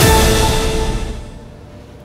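Final chord of a TV news programme's theme music ringing out and fading away over about a second and a half, leaving quiet room tone.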